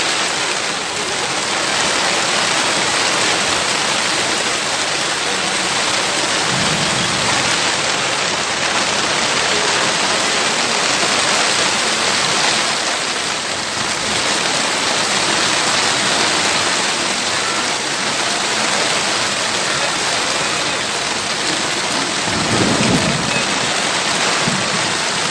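Heavy rain pouring steadily onto a waterlogged road, with two brief low rumbles, about seven seconds in and again near the end.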